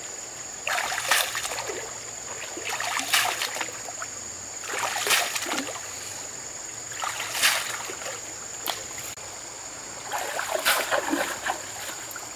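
Shallow river water splashing in short bursts about every two seconds as hands scoop and dig sand from the river bed, over a steady high-pitched tone.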